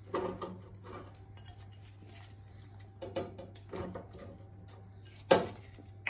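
Raw potato wedges dropped by hand into a deep fryer's wire mesh basket: a few scattered knocks of potato on metal mesh, the loudest about five seconds in, over a faint steady hum.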